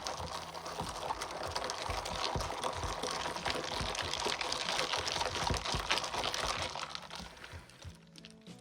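Background music with a dense, hissing liquid noise over it, a drink being sipped through a straw, which fades out near the end.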